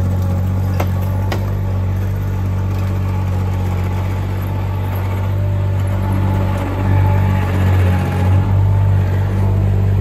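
Cormidi C1500 mini skid steer's engine running steadily as the tracked machine moves off, with two light clicks about a second in; the engine note gets a little louder and wavers in the last few seconds as it works.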